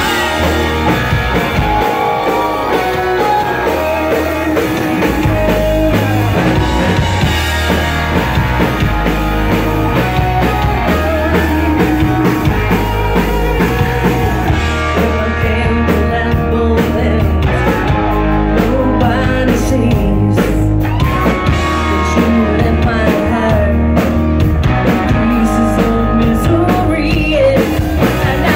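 Live rock band playing a song: electric guitars, bass guitar and drum kit with a steady low beat, and a woman singing into the microphone.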